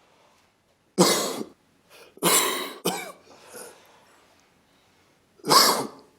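Coughing in separate sharp bursts: one cough about a second in, a longer cough a second later, and another near the end.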